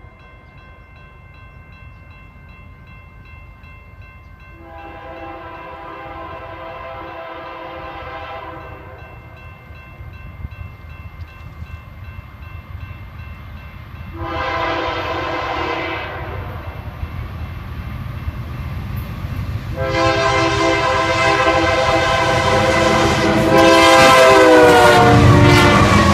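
BNSF diesel freight locomotive's air horn blowing for a grade crossing as the train approaches: a long blast, a shorter one, then a long blast that drops in pitch as the locomotive passes. Beneath it, the rumble of the engines and wheels grows louder.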